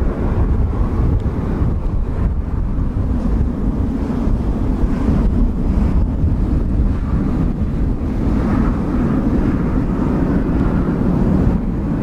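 Strong wind buffeting the microphone as a steady low rumble, over the steady hum of a Boeing 777's twin jet engines as the airliner taxis.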